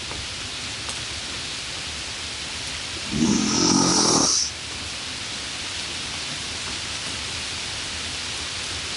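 A steady hiss like rain or white noise, with one low rasping breath-like sound lasting about a second, about three seconds in.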